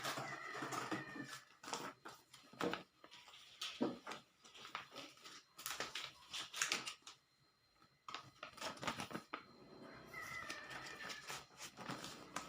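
Handling of a toy's packaging and parts: irregular rustles and sharp clicks of plastic and cardboard, with a short squeak just after the start and another about ten seconds in.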